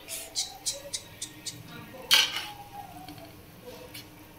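Metal ladle stirring a boiling tamarind curry (puli kulambu) and scraping and clinking against the sides of a metal pot. A quick run of light clinks comes first, then one louder scrape about two seconds in, then a few fainter taps.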